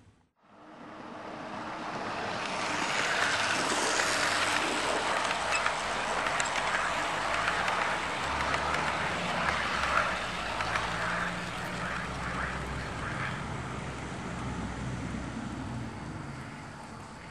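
OO gauge Bachmann Cambrian Coast Express model train running along garden track: wheels clicking rapidly over rail joints over the hum of the DC locomotive motors. It builds up over the first couple of seconds, is loudest through the middle, and fades toward the end as the train passes.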